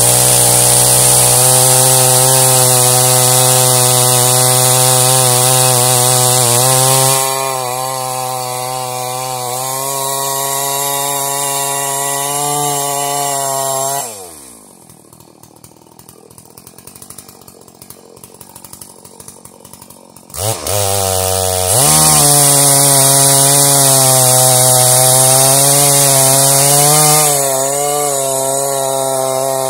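Gas chainsaw on a homemade log mill, running at full throttle while ripping along a log. The cutting hiss eases about 7 s in while the engine keeps running fast. Around 14 s the pitch falls and the saw drops to idle. About 20 s in it revs back up and cuts loudly again, easing off near the end.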